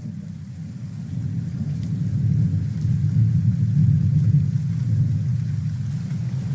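Rolling thunder with rain: a deep rumble that swells over the first couple of seconds and then holds, with a faint hiss of rain above it.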